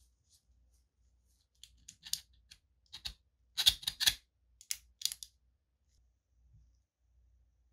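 Sharp clicks and clacks of the 3D-printed plastic parts of a model fin-stabilized shell being handled, in an irregular run, with the loudest pair of clacks about halfway through.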